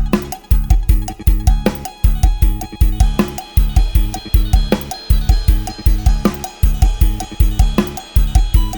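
Thai lam sing (Isan folk-pop) backing music: a sampled drum kit from Addictive Drums 2 drives a fast, steady beat with a heavy kick, with cymbals and other instruments over it.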